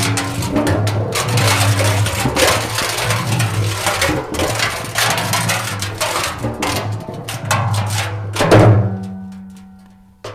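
Metal barrel dropped and clattering, with a rapid string of clanging knocks. A final heavy hit near the end leaves a metallic ring that fades away, then cuts off suddenly.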